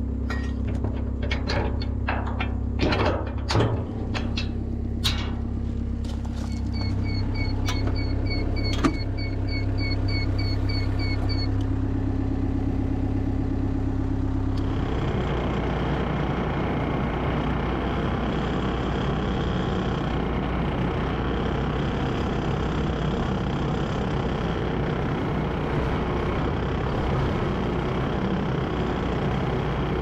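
Gehl RT210 compact track loader's diesel engine idling, with metal clanks and knocks as the brush cutter attachment is latched on, and a run of rapid evenly spaced beeps from the machine. About halfway through, the engine picks up and the loader drives off on its tracks over gravel, a steady louder running noise.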